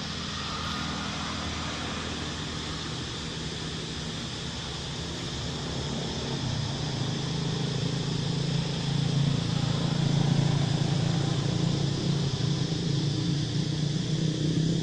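A motor vehicle's engine running steadily, growing louder from about six seconds in as it draws nearer.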